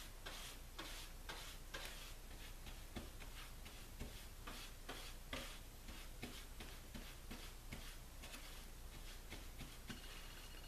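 Wet paintbrush dabbing bleach onto cedar canoe planks: faint, irregular brushing strokes, about two or three a second.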